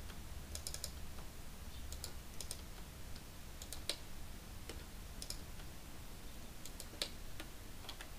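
Scattered clicks and taps from a computer keyboard and mouse, some in quick pairs and threes, over a faint low hum.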